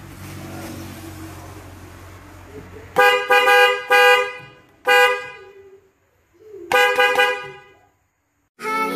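Suzuki Carry's car horn honking three times: a blast of about a second, a short toot, then another blast, each with a clear, full tone, the sound of the horn working again after its repair for a cracked, weak sound. A low steady hum runs under the first few seconds before the honks.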